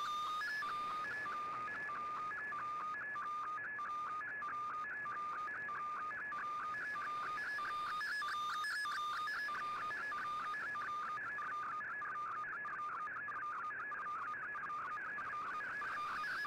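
Shortwave radio receiving an MFSK colour picture transmission: a warbling data signal of tones stepping quickly back and forth between two pitches, over shortwave hiss.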